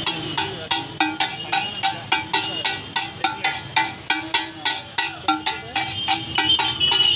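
Metal spatula striking and chopping pav bhaji on a large flat tawa: a quick, regular metallic clatter of about three to four strikes a second as the vegetables are mashed.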